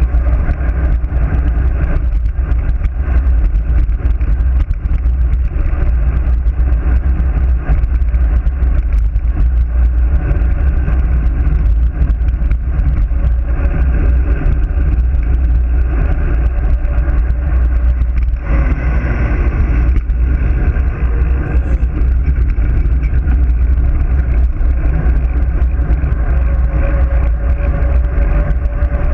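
Loud, steady wind buffeting on a GoPro's microphone as a road bike descends at speed, with tyre noise on the asphalt underneath. It turns brighter and hissier for a couple of seconds about two-thirds of the way through.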